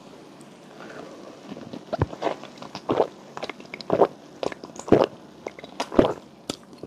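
Close-miked gulps of a fizzy blood orange soda drunk from a glass: about five swallows roughly a second apart, with small wet mouth clicks between them.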